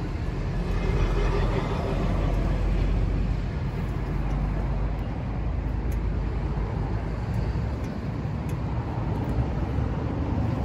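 Honda CBR650R's 649 cc inline-four engine idling steadily.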